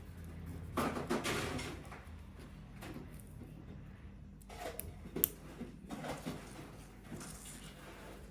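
Quiet handling noises: scattered light knocks and rustles, with a sharp click about five seconds in, over a low steady hum.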